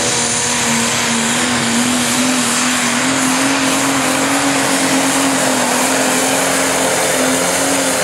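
Pro Stock pulling tractor's turbocharged diesel engine running flat out under load as it drags the weight sled, holding a nearly steady pitch over a loud rushing noise.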